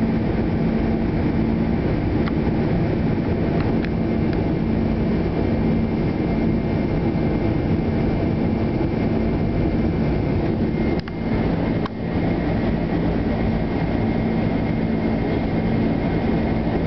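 Steady jet-engine noise inside the passenger cabin of a Boeing 747 climbing after takeoff, with a constant low hum under it. The level drops briefly twice, about eleven and twelve seconds in.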